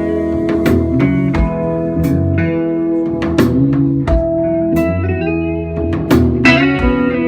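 Live band playing an instrumental passage: sustained guitar notes over drums, with regular cymbal strokes and a low kick-drum thump every few seconds.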